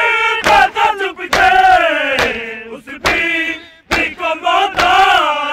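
Male voices chanting a Urdu noha (a Muharram lament), with the sharp slaps of matam, men beating their chests in unison about once a second.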